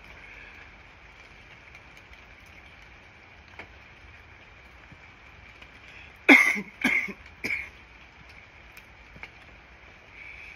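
A man smoking a cigarette coughs three times in quick succession, loud bursts about half a second apart, the first the strongest, a little past the middle.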